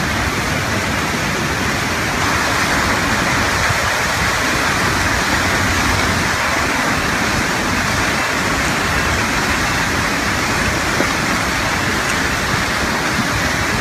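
Flash-flood torrent of muddy water and debris rushing down a hillside: a loud, steady, unbroken rush of water.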